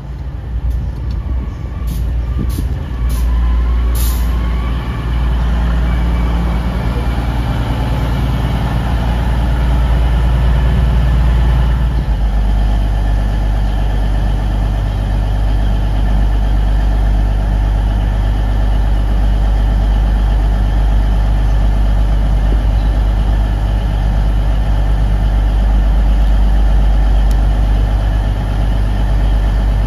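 Class 222 Meridian diesel multiple unit running into the station and slowing, its underfloor diesel engines running, with a few sharp clicks early on. From about twelve seconds in, a Class 222 stands at the platform with its diesel engines idling in a steady drone.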